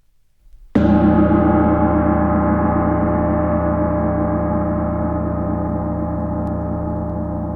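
A single gong stroke about a second in, ringing on with many overlapping metallic tones that fade only slowly.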